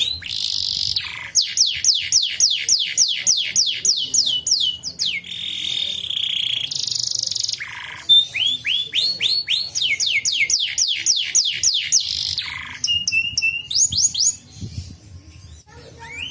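Domestic canary singing: rapid rolls of repeated sweeping whistled notes at about four a second, switching between phrases, with a couple of held buzzy notes and a short fast trill.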